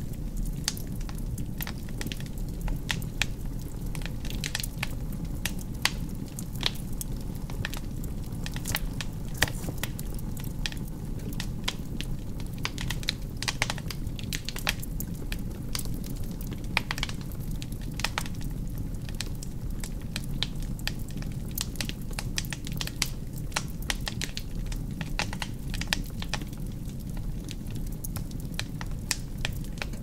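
Wood fire burning in a fireplace: a steady low rush of flames with frequent, irregular crackles and pops from the logs.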